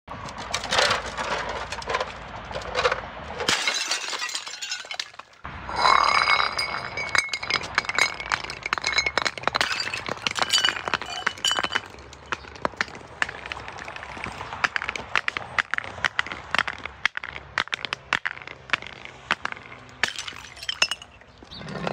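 Coloured glass bottles filled with beads smashing on concrete steps: glass shattering, then a long run of clinking and crackling as shards and beads scatter, with a brief lull about four seconds in.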